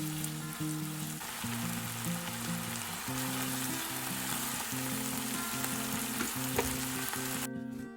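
Food frying in a frying pan: a steady sizzle, cutting off suddenly near the end.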